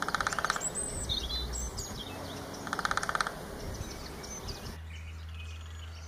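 Great spotted woodpecker drumming: two short, rapid rolls of strikes on wood, each about half a second long and about two and a half seconds apart. This is the male's drumming call to the female. Small birds chirp faintly in the background.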